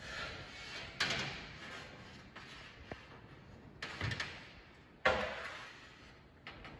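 A series of sudden knocks or clacks, the strongest about a second in and about five seconds in, each trailing off over about a second.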